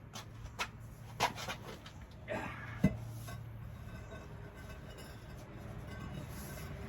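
A few light metallic clinks and knocks of tools and bolts being handled, the sharpest a little under three seconds in, over a steady low hum.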